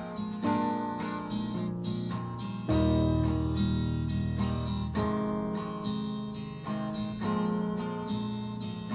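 Acoustic guitar playing the song's intro, chords picked and strummed and changing every second or two, with a deeper bass part coming in about three seconds in.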